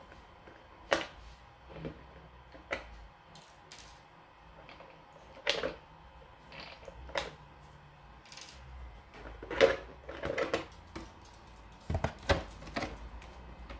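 Irregular clicks, taps and plastic knocks as hands take the clear polycarbonate body shell off an RC monster truck, with the loudest knocks late on as the shell comes free of the chassis.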